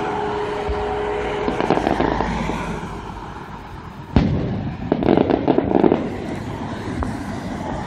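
Aerial fireworks shells bursting: one sharp boom about four seconds in, then a dense run of rapid crackles, with scattered smaller bangs around it.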